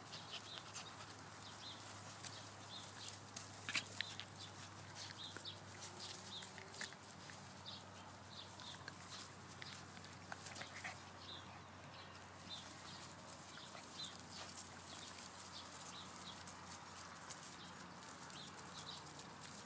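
Faint, short animal calls and scattered clicks over a low steady hum.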